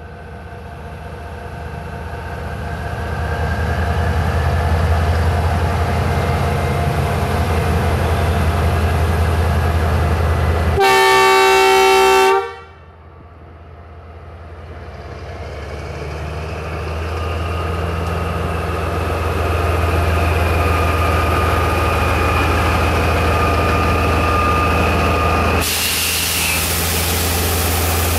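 A D19E diesel-electric locomotive running with a steady low engine drone that grows louder as it approaches. About eleven seconds in, one horn blast of roughly a second and a half cuts off abruptly. The engine builds again, and a steady hiss comes in suddenly near the end.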